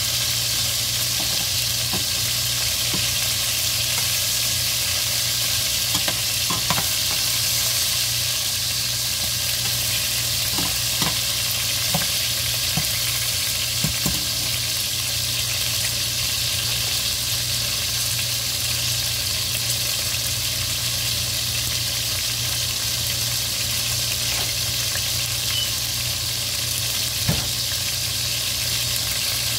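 Chicken pieces sizzling in hot oil in a stainless steel pot, a steady high hiss, with a few sharp clinks of a metal slotted spoon against the pot as the pieces are turned. A steady low hum runs underneath.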